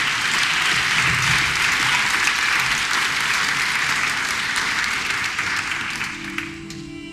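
Audience applauding, a dense patter of many hands clapping, dying away about six seconds in as music begins.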